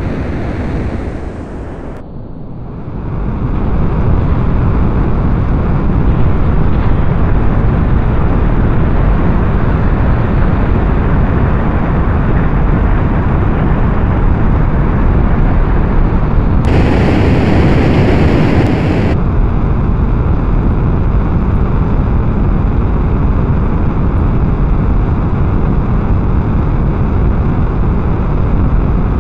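Rocket launch sound effect: a rocket engine at lift-off, a loud, steady, low rushing rumble. It dips briefly, then swells a few seconds in and holds. Past the middle it turns brighter and harsher for about two seconds.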